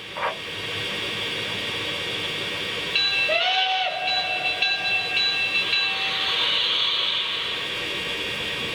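Lionel Legacy model steam locomotive's onboard sound system playing a chime steam whistle over a steady hiss. The whistle sounds about three seconds in, its several tones bending up as it opens, and holds for about three seconds. Near the end the hiss swells.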